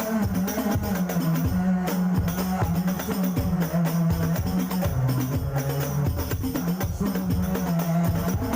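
Hadroh ensemble playing instrumentally: frame drums and tambourine beat a fast, dense rhythm over a low bass line that steps between held notes.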